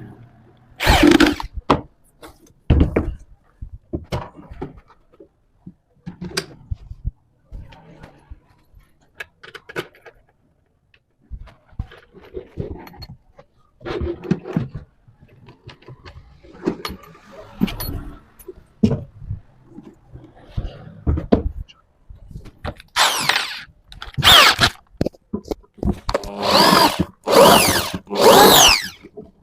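Power tool, drill-like, run in short bursts whose pitch rises and falls as the motor speeds up and slows, loudest in the last few seconds. Scattered knocks and handling noises of wood come between the bursts.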